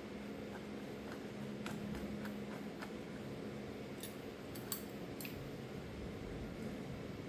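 Scattered light metallic clicks and taps from hand work on a Delco distributor's small parts, several of them sharper about four to five seconds in, over a steady low hum.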